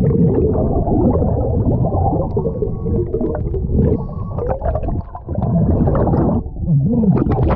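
Underwater bubbling and rumbling from a scuba diver's air bubbles, heard muffled through the camera's underwater housing, dipping briefly about five seconds in and again near the end.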